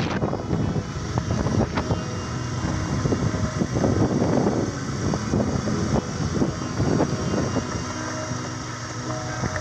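Vehicle engine running while driving over a rough gravel dirt road, with scattered knocks and rattles from the bumpy surface and wind on the microphone.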